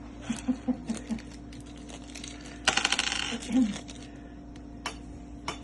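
Light metallic clicks from small metal hardware being handled: a few taps early on, a short fast jingling rattle about halfway, and two single clicks near the end.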